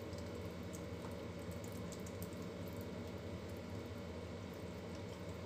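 Kitchen tap running a thin, steady stream of water into a stainless steel sink.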